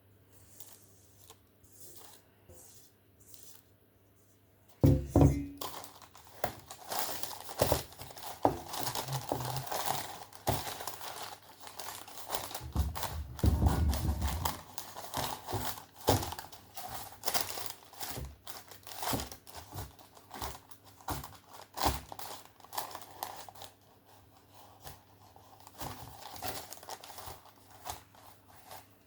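Hands crinkling and rustling while working in the kitchen, with many small clicks. A sharp knock comes about five seconds in and a heavier thud near the middle, and the rustling eases off over the last few seconds.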